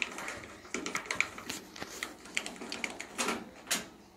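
Hand screwdriver backing out screws from a dryer's sheet-metal front panel: a run of small, irregular clicks and ticks, with two louder knocks near the end.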